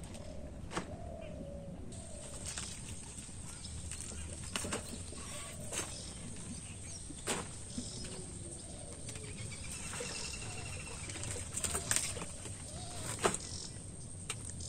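Water hyacinth being pulled and broken apart by hand: scattered snaps and rustles, with faint bird calls in the background.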